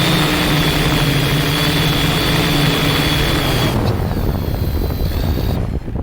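Drone motors and propellers whining steadily in strong wind, with the whine cutting out about four seconds in. The drone has a faulty electronic speed controller.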